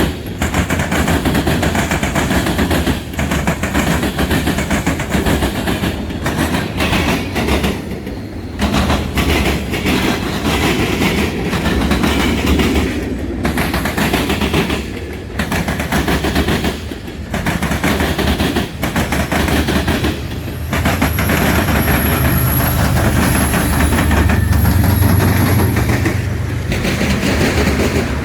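Freight train rolling past, its wheels clattering rhythmically over the rail joints with a steady rumble. About three-quarters of the way through, a low engine hum rises under it for several seconds, with a thin high wheel squeal.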